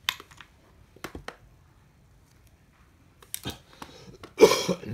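A few sharp clicks and knocks from a spinning fishing reel being handled, with a louder clatter near the end.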